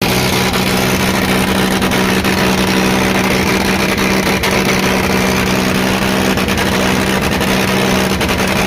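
Tractor diesel engine running loud and steady, its pitch holding level without revving up or down.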